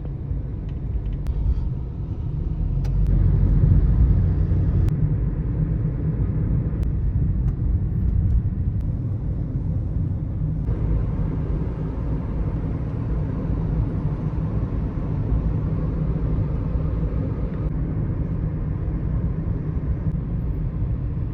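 Car driving along a road: a steady low rumble of engine and road noise, changing abruptly about halfway through.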